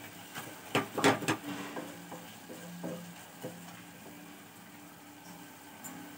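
Wooden spatula stirring and scraping mutton and onions in an aluminium pressure cooker pot, with a cluster of loud knocks and scrapes about a second in, then only a few light clicks.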